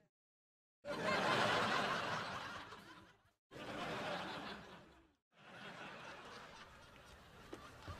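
Sitcom studio-audience laugh track from Disney Channel and Nickelodeon shows: three separate laughter clips cut back to back, each starting abruptly after a short stretch of dead silence, the last one quieter.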